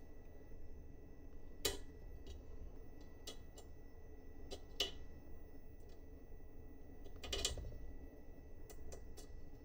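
Irregular light clicks and taps of small parts and hand tools being handled during assembly of a 3D printer kit, with three louder knocks about two, five and seven and a half seconds in, over a low steady hum.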